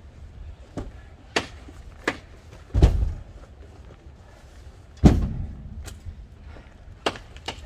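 Two heavy thuds, about three and five seconds in, the second the louder, with lighter sharp knocks in between and near the end.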